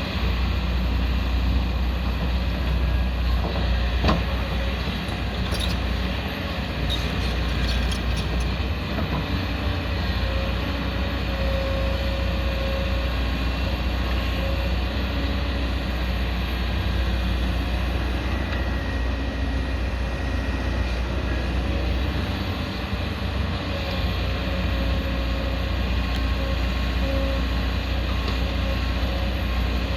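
Diesel engine of a 22-tonne hydraulic excavator running steadily under load while it digs. A few knocks and rattles come a few seconds in.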